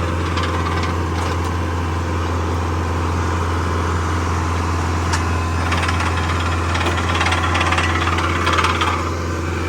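An engine running steadily with a deep, even hum, with scattered clicks and knocks over it and a slight swell in level near the end.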